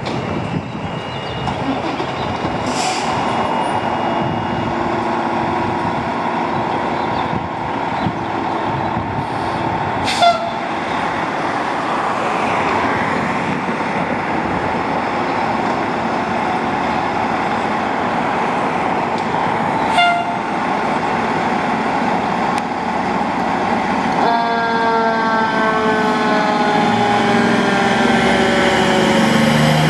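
2007 Pierce Quantum fire engine running as it pulls out of the station on a call, with two short horn blasts about 10 and 20 seconds in. From about 24 seconds a siren sounds, its tones falling slowly in pitch.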